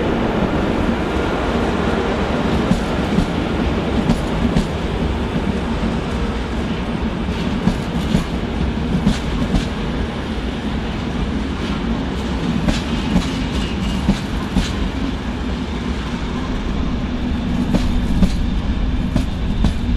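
A train rolling by on the track: a steady rumble with wheels clicking over rail joints at irregular intervals, growing louder near the end.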